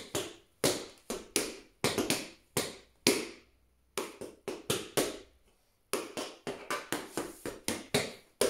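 Metal taps on tap shoes striking a hard floor in a quick, uneven rhythm, dancing a time step combination, with two short breaks, about three seconds and about five seconds in.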